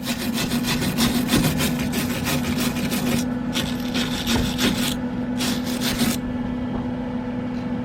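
Hand wire brush scrubbing an aluminum weld clean with rapid back-and-forth strokes: a long bout, then two shorter ones, stopping about six seconds in.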